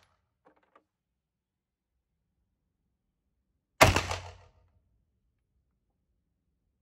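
A single sharp gunshot about four seconds in, dying away over under a second.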